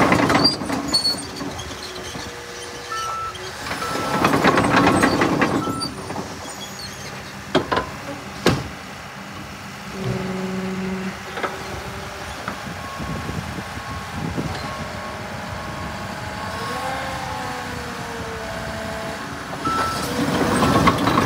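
John Deere 850K crawler dozer's diesel engine running as the machine tracks and turns, louder in stretches as it pulls away. There are two sharp clanks about eight seconds in and short repeated beeps from its backup alarm.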